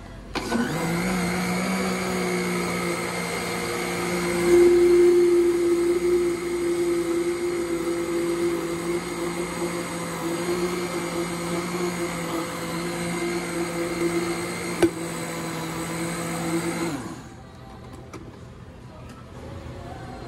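Countertop blender motor running steadily, blending misutgaru (roasted grain powder) with liquid. It gets louder about four and a half seconds in and switches off a few seconds before the end.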